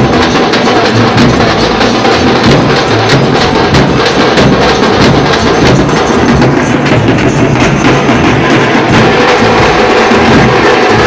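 Percussion music: drums struck hard in a fast, dense, driving rhythm.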